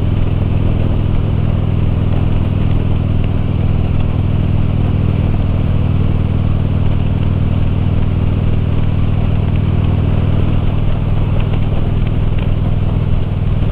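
Harley-Davidson motorcycle engine running at a steady cruise while riding, a low drone that holds the same pitch throughout.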